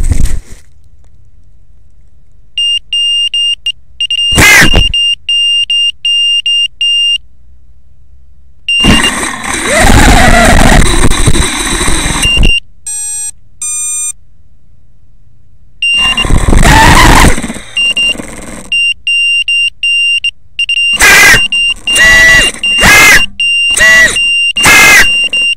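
A crashed racing quadcopter lying upside down in tall grass, its beeper sounding repeated short high beeps. Its motors spin up in turtle mode in several bursts, two long and several short, the props thrashing the grass without flipping it upright. A short run of electronic beep tones from the motors comes between the bursts.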